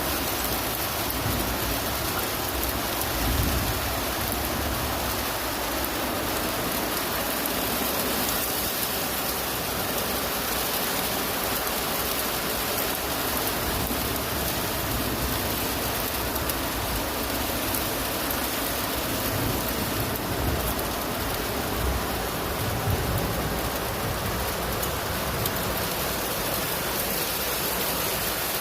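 Steady rain falling, an even hiss with a few brief low swells.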